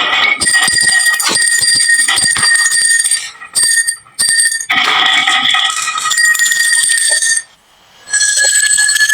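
Marbles rolling and clattering down a wooden marble run: rapid clicks with a bright metallic ringing over them, broken off twice for a moment.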